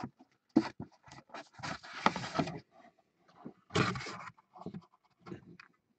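Cardboard box being handled and slid across a desk: a string of irregular scrapes and rustles, with two longer scrapes about two and four seconds in.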